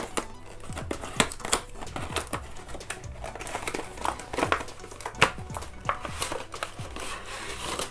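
Cardboard-and-plastic retail packaging of a Bluetooth neckband earphone being opened by hand: irregular rustling and crinkling with scattered clicks as the box sleeve and plastic window tray are handled.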